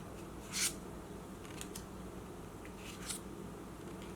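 Trading cards sliding against one another as they are flipped through by hand: a few short, soft swishes, the loudest about half a second in.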